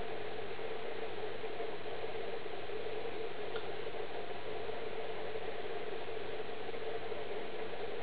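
Steady background hiss with a low hum, unchanging throughout; no bird calls, with one faint tick about three and a half seconds in.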